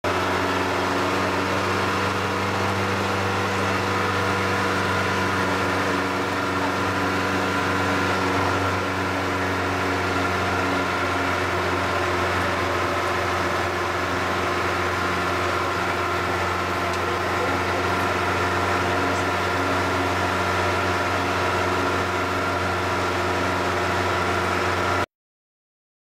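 Vehicle engine running at a steady speed with a constant hum and road noise, heard from inside the vehicle; it cuts off suddenly about a second before the end.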